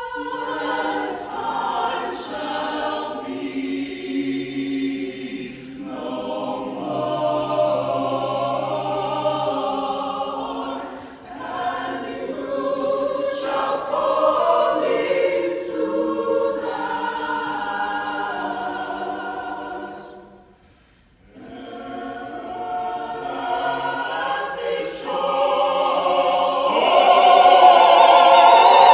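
Mixed choir of women and men singing a sacred choral piece. The singing stops for about a second about two-thirds of the way through, then comes back in and builds to its loudest at the end.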